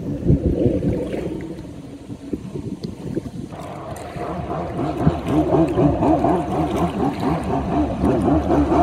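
Jet ski engine heard across open water, its pitch rising and falling as it revs up and down; it grows louder and clearer from about three and a half seconds in.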